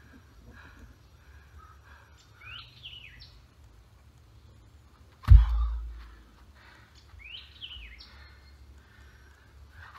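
A heavy stone-like lifting weight dropped from overhead lands on the forest floor with one dull thud about five seconds in. Birds call twice, short sweeping chirps, before and after it.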